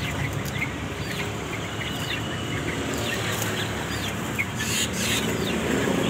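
Cucak wilis and other caged birds chirping: many short, quick chirps and little rising whistles. About five seconds in there is a short flurry of wing flaps.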